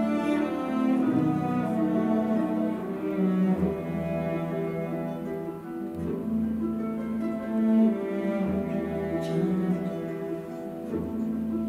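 Slow orchestral music for a ballet adagio: bowed strings playing sustained notes, with a cello line prominent and a low bass part coming in about a third of the way through.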